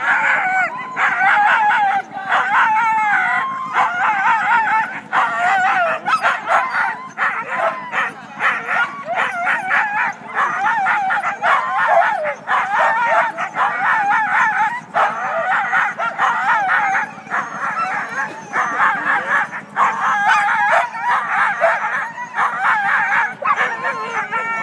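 A team of Siberian huskies hitched to a sled gangline, many dogs barking, yipping and howling over one another without a break: the sled dogs' excited clamor while held back waiting for the start.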